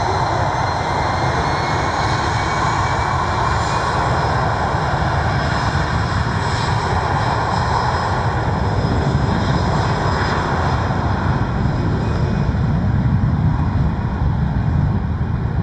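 Airbus A320-211's two CFM56-5A turbofan engines at takeoff thrust during the takeoff roll: a loud, steady jet roar. About halfway through the sound turns deeper, with a low rumble growing stronger as the aircraft rolls past.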